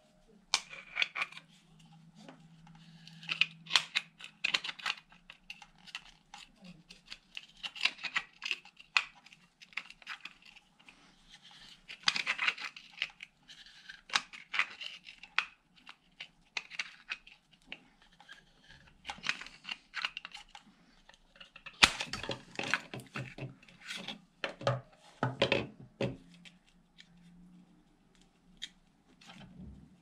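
Screwdriver and pliers scraping, clicking and tapping on the metal base of a CB radio antenna as its contact points are cleaned, with a cluster of louder knocks a little past the middle.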